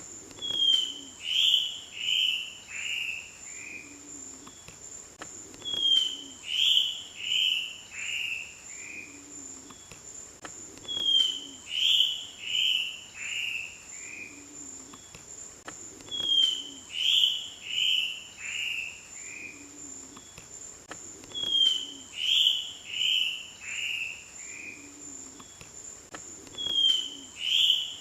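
A mãe-de-taoca, an ant-following antbird, repeats its song about every five and a half seconds: a short high opening note, then about five harsh notes that step down in pitch. A steady high insect trill runs underneath, and soft low notes sound between the songs.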